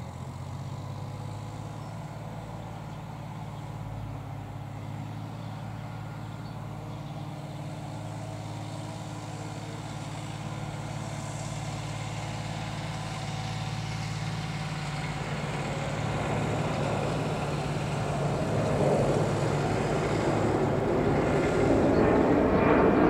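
Deutz-Fahr D4005 tractor's air-cooled diesel engine running steadily as the tractor drives along, growing gradually louder as it comes closer, and loudest and roughest over the last few seconds.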